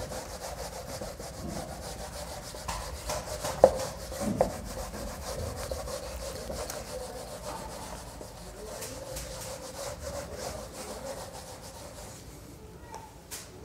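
A board duster being rubbed back and forth across a whiteboard, wiping off marker writing in a run of short scrubbing strokes. Two sharper knocks come about four seconds in.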